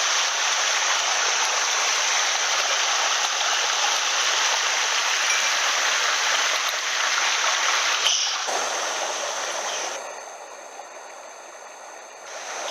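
Small mountain headwater stream running fast over rocks, a steady rush of water close by. About eight seconds in it cuts abruptly to a much quieter water sound.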